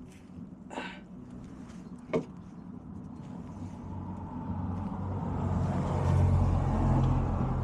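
A motor vehicle's engine grows steadily louder over several seconds, as if drawing near. Before it builds there is a sharp metallic click about two seconds in.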